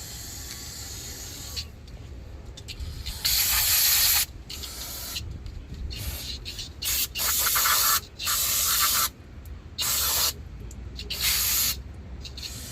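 An aerosol can of brake cleaner sprayed in about seven short hissing bursts, each under a second, blasting dust and dirt off the brake parts.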